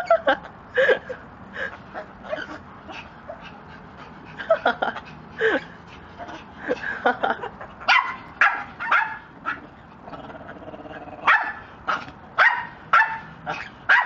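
Short, sharp bark-like yips and calls, coming in quick clusters with short pauses between.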